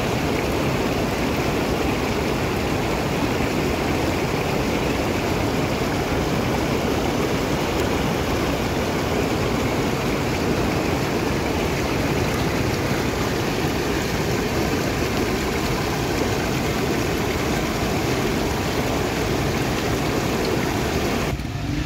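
Floodwater flowing fast across a road after heavy rain, a steady rushing noise that cuts off abruptly shortly before the end.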